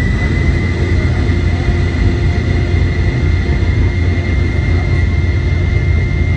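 Boeing 717-200's rear-mounted Rolls-Royce BR715 turbofans spooled up for takeoff, heard from inside the cabin: a high engine whine finishes rising and holds steady over a loud, even rumble.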